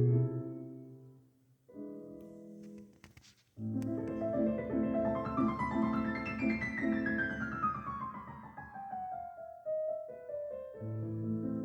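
Piano music. One phrase fades away, a short soft chord follows, then a fuller passage comes in with a long run of notes stepping downward.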